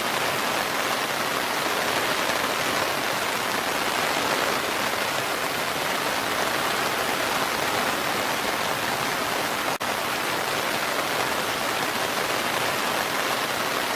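Steady rain falling on forest foliage, mixed with the continuous rush of a waterfall, an even hiss. It cuts out for an instant about ten seconds in.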